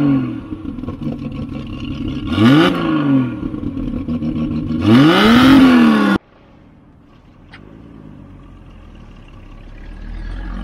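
Recently rebuilt 2.5-litre inline-six of a 1972 Triumph TR6 revved through its exhaust: two quick blips, then a longer rev held for about a second that cuts off sharply about six seconds in. After that the engine runs more quietly, growing louder near the end as the car moves off.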